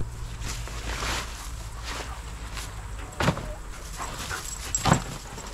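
A dog barking twice, about a second and a half apart.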